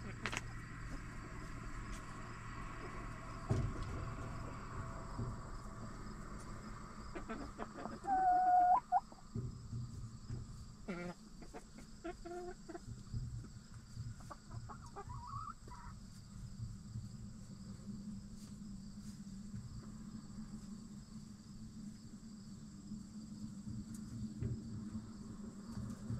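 Backyard hens clucking and calling, with one loud drawn-out call about eight seconds in and a few short calls after it, one of them rising in pitch.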